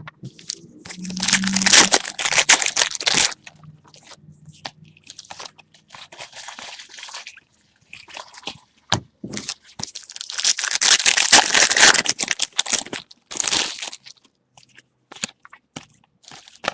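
Trading-card pack wrappers crackling and crinkling as packs are torn open, in two long stretches with short clicks of cards being handled in between.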